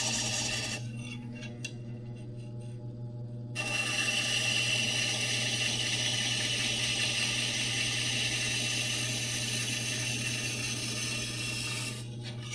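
A scraper blade is being honed on a motor-driven diamond wheel sharpener: a steady motor hum under a hissing grind of the blade on the wheel. The grinding drops away for about three seconds, about a second in, then resumes until just before the end.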